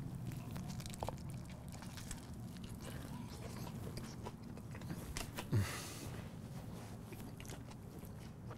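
A man biting into and chewing a steak sandwich on toasted bread, with small wet crunches and crackles of the crisp crust as he chews. A short low hum from him about five and a half seconds in.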